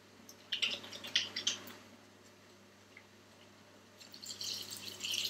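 Hands being washed under a kitchen tap: water splashing and dripping in short bursts, a quieter pause in the middle, then more splashing near the end.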